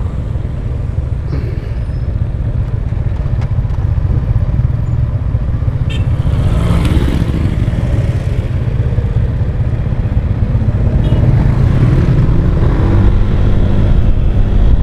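Motorcycle engine running at a stop among other idling motorbikes, then pulling away, the rumble growing louder over the second half.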